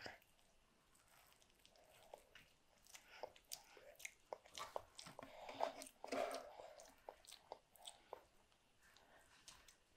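A toddler chewing a soft crumpet, with a run of small wet lip-smacks and mouth clicks that are densest in the middle few seconds.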